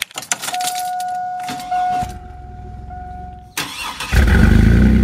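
Keys clicking in the ignition and a steady tone. Then the 2003 Chevy S10 Xtreme's V6 cranks for about a second and a half, catches, and settles into a loud idle through a side-exit exhaust pipe with a large tip. The engine is already warm, not a cold start.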